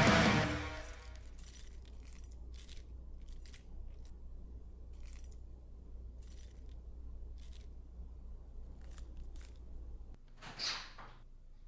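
Electric guitar music cuts off at the very start, leaving a steady low hum with scattered small clicks and a brief rustle about ten and a half seconds in.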